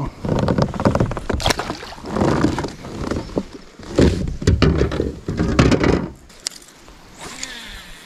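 Knocks, bumps and rubbing on a plastic sit-on-top kayak and its gear as the angler shifts about and handles it, several sharp knocks among them, dying down about six seconds in.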